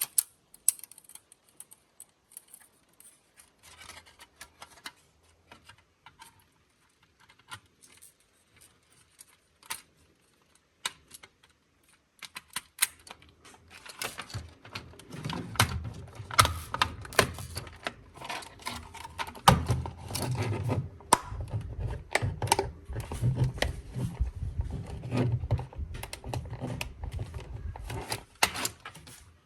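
Small plastic toy-car parts being handled and taken apart: scattered clicks and taps at first, then from about halfway a dense, continuous clatter and rattle of plastic pieces.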